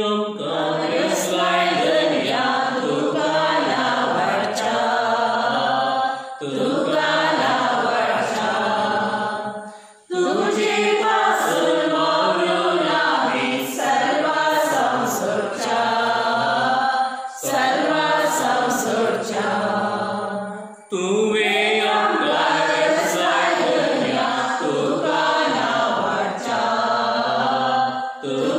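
A hymn of thanks to God being sung, phrase by phrase, with short breaks between the lines.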